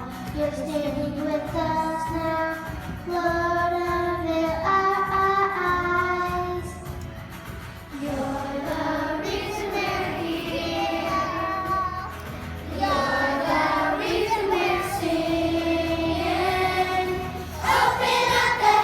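Children singing a slow melody with long held notes that move step by step.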